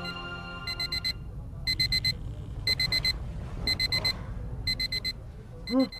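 Digital alarm beeping as a wake-up alarm: groups of four quick, high beeps repeating about once a second.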